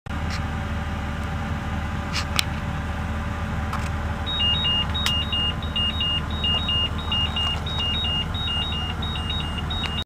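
Steady low rumble with a repeating electronic beeping that starts about four seconds in: short high beeps at two alternating pitches, a couple of groups a second.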